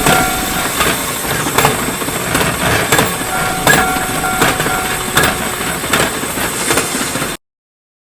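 Train running, its wheels clicking irregularly over the rails, until it cuts off suddenly a little before the end.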